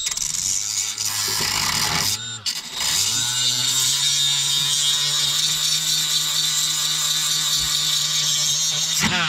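Cordless rotary tool running at high speed against a car's steel underbody, scrubbing off rust and tar-like underseal, a steady motor whine with scraping over it. It cuts out briefly about two and a half seconds in, then runs steadily again until just before the end.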